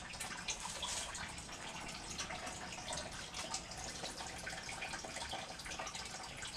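Steady running, trickling water with small drips and splashes.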